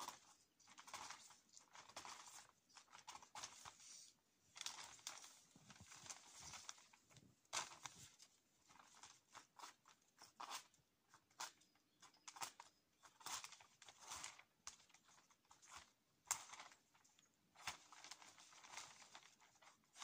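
Plastic sheeting crinkling and rustling as it is pulled and bunched by hand, in faint irregular bursts with sharp crackles.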